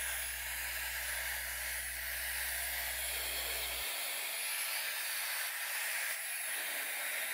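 Dyson HD01 hair dryer running with its heater on: a steady rush of air with a thin high whine over it.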